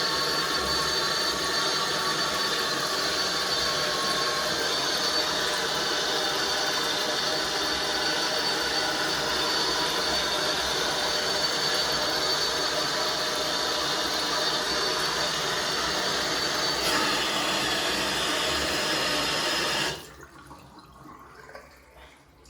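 Bathroom basin mixer tap running with a very loud noise: rushing water with steady whistling tones over it, which stops suddenly near the end. The noise comes when hot water is mixed with cold; on full hot the tap runs normally.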